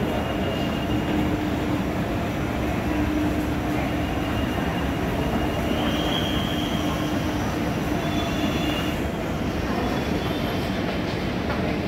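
Moving walkway running: a steady mechanical rumble with a low hum, with faint high squealing tones coming and going.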